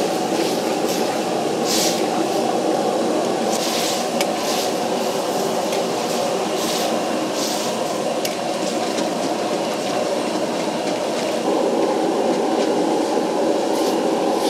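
Wok cooking over a gas burner: a steady, loud burner noise under sauce bubbling in the wok, with a steel ladle scraping and stirring through the food several times in the first half and the noise rising slightly near the end.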